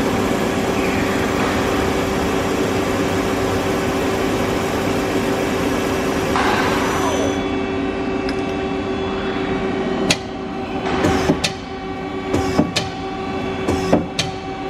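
Nakamura SC-150 CNC turning center with its spindle and chuck spinning: a steady machine hum with a constant tone. About halfway, the higher hiss cuts off as the spindle stops, and several sharp clicks and knocks follow in the last few seconds.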